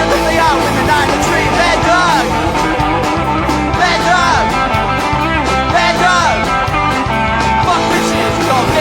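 A rock band playing: electric guitar with bending lead notes over bass and a steady drum beat.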